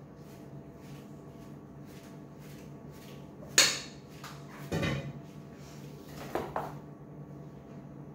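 Silicone spatula scraping cake batter from a stainless-steel mixing bowl in light, even strokes, then a sharp metallic clank about three and a half seconds in. A duller thump follows about a second later, and two light knocks come a second or so after that as the metal baking pan is handled on the stone counter.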